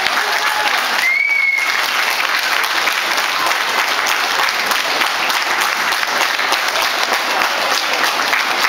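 Audience applauding steadily, dense clapping from many hands. A brief high tone rises briefly about a second in.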